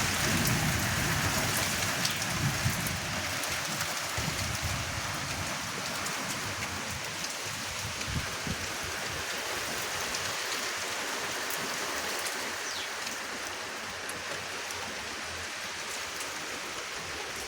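Light rain falling steadily on surfaces, a soft even hiss with a few louder drops now and then.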